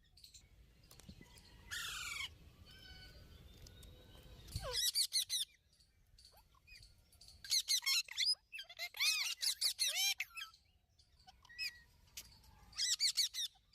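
A parrot calling in clusters of short, sharp chirps and squawks, with pauses between the bursts.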